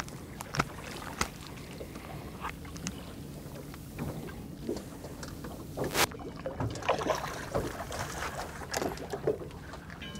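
Scattered clicks and knocks of a fluke being handled and measured on a fiberglass boat, with a sharp knock about six seconds in and a busier run of small knocks after it, over a steady low background.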